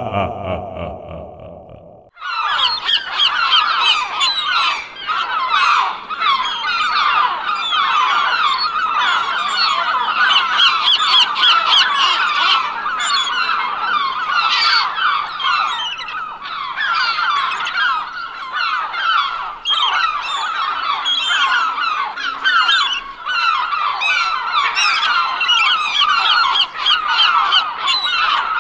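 Laughing sound effect: a dense chorus of many overlapping short, high calls, running unbroken once it starts about two seconds in, after the previous effect fades away.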